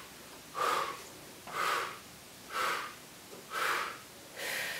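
A person breathing hard through the mouth in short puffs, five times at about one a second, with no harmonica tone: practising harmonica blow and draw breaths.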